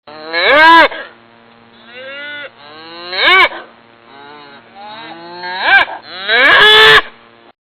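Cattle mooing repeatedly: three loud, drawn-out moos (about half a second in, near the middle, and near the end), with quieter moos between them.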